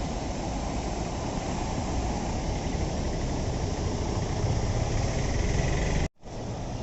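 Steady vehicle engine and road noise, a low, even rumble that cuts out abruptly for an instant about six seconds in and then resumes.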